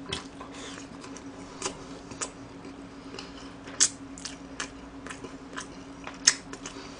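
Close-miked chewing of a mouthful of rice: soft wet mouth clicks and smacks at irregular intervals, over a faint steady hum.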